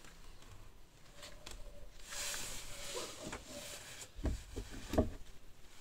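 Quiet handling noises as grafting tools and a scion are set down and picked up: soft rustling, then two short knocks about four and five seconds in.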